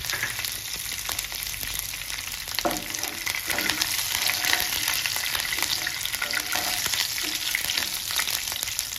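Curry leaves, peanuts, cumin seeds and chopped green chilli sizzling and crackling steadily in hot oil in a nonstick kadhai, stirred with a wooden spatula from about three seconds in.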